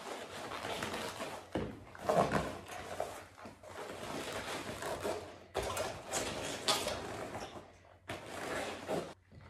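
Glossy rubber boot squeaking and creaking as the rubber is flexed and rubbed, along the whole length of the boot, in long stretches with short breaks; the loudest squeak comes about two seconds in.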